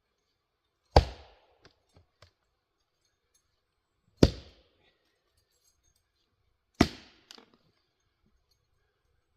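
Three chops of a 3½-pound Velvicut Jersey axe splitting firewood, about a second in, past four seconds and near seven seconds: each a sharp crack that dies away quickly. A few lighter knocks follow the first and last strikes.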